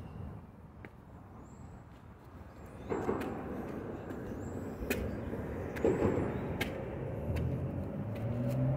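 Low rumble of vehicle traffic, with scattered footsteps on concrete steps. Near the end a vehicle engine rises in pitch as it speeds up.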